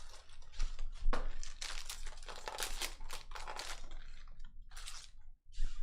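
Crinkling and tearing of a foil trading-card pack wrapper, with cards rustling as they are handled, in short irregular bursts.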